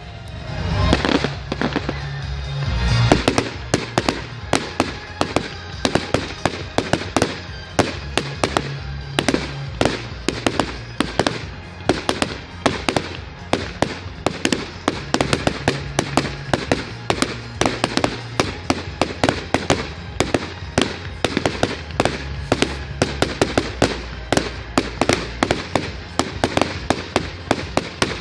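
Rapid barrage of firework bangs, about three a second, with music and its bass line playing underneath.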